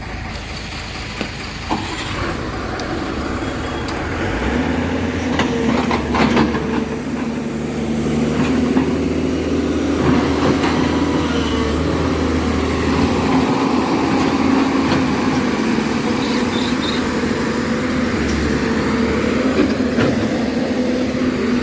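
Heavy diesel engine running under load as a stuck tipper truck is pulled out by an excavator, building up in loudness about four seconds in and then holding steady, with a few sharp clanks.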